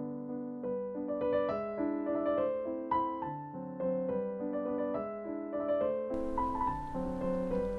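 Background piano music: a gentle melody of held notes changing every half second or so. A faint hiss joins beneath it about six seconds in.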